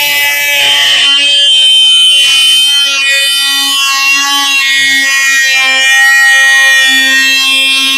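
Parkside PAMFW 20-LI B2 cordless oscillating multitool running at full speed, a loud steady buzzing whine, while its blade cuts a cutout into wood.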